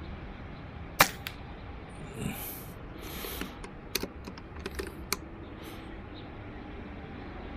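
Air rifle with a mini silencer firing once, a short sharp shot about a second in that is quiet for a gun, followed a moment later by a fainter knock, likely the pellet striking the target. A few light metallic clicks follow around four to five seconds.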